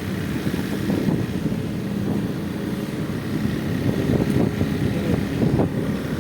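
Heavy rain and strong storm wind, heard as a steady low rumble with wind buffeting the microphone.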